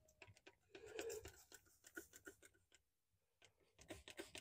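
Near silence, with faint scattered ticks and a soft hiss about a second in.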